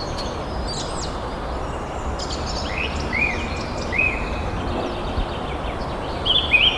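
Wild birds calling over a steady background hiss: a few short, arched chirps spaced about half a second apart midway through, and a quicker run of chirps near the end.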